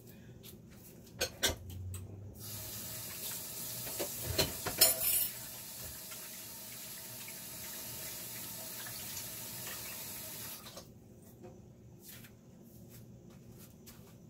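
Kitchen tap turned on and running steadily for about eight seconds, then shut off. A few sharp knocks sound under the running water, the loudest near the middle.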